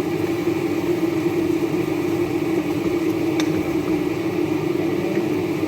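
Steady whir of a small motor, even throughout, with one faint tick a little past halfway.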